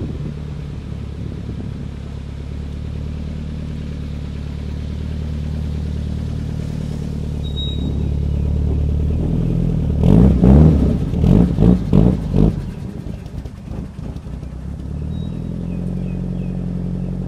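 Nissan Pulsar GTI-R's turbocharged SR20DET four-cylinder engine running as the car rolls slowly in reverse, growing louder as it comes closer. About ten seconds in, the engine is revved in a few quick blips for about two seconds, then settles back to a steady idle.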